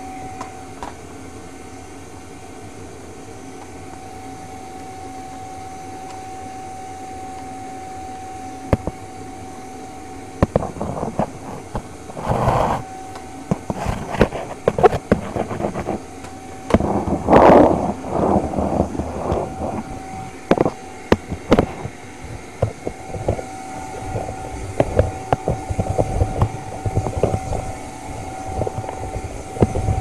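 Vacuum cleaner running steadily with a constant whine. From about ten seconds in come many irregular knocks and clatters.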